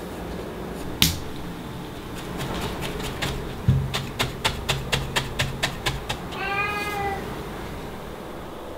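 A sharp click about a second in, then a run of quick needle-felting stabs into wool, about four ticks a second for a couple of seconds, followed by a short cat meow.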